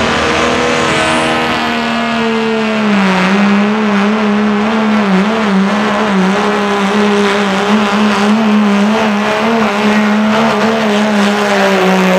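Dodge Ram pickup's Cummins inline-six diesel running flat out under heavy load as the truck drags a pulling sled, a steady high-rev drone that sags slightly about three seconds in and then wavers as the sled bites. A faint high whistle rises about a second in and then holds.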